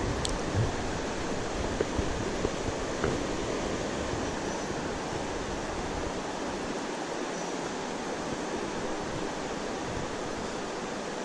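Steady rush of river water flowing over a shallow riffle, with wind buffeting the microphone as a low rumble during roughly the first half.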